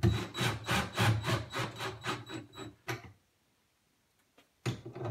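A screw being driven into the wooden bench bracket with a cordless drill-driver: a rapid, even run of grinding strokes, about five a second, that stops about three seconds in.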